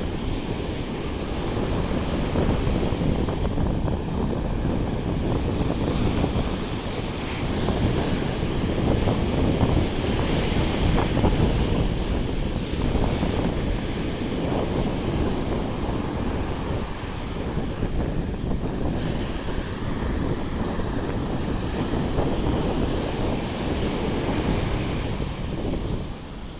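Sea surf washing onto a beach, with wind buffeting the microphone in a steady low rumble.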